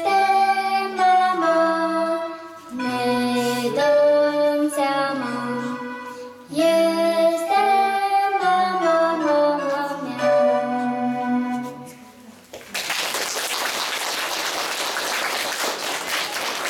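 A girl's song over a Roland electronic keyboard accompaniment, held notes moving through a melody, ends about twelve seconds in. Applause follows and continues to the end.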